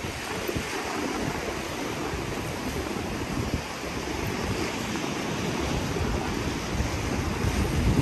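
Sea waves washing onto the shore, with wind buffeting the microphone in gusts, strongest near the end.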